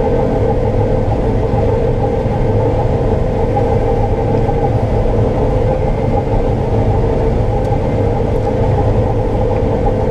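Combine harvester running steadily while harvesting soybeans, heard from inside the cab.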